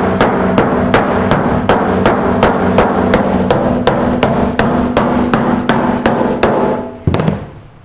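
Rubber mallet tapping a steel truck door panel in rapid, even, gentle blows, about three to four a second. The sheet metal rings steadily under them. It is knocking down high spots while the dent is pushed up from below. The hammering stops about seven seconds in.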